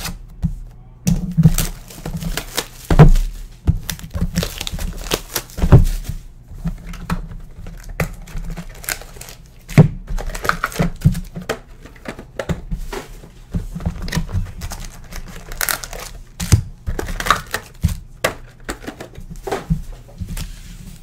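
Panini Prizm basketball card boxes being opened by hand: plastic wrap and packaging crinkling and tearing, with irregular cardboard knocks as the foil packs are taken out and set down. The loudest knocks come about 3, 6 and 10 seconds in.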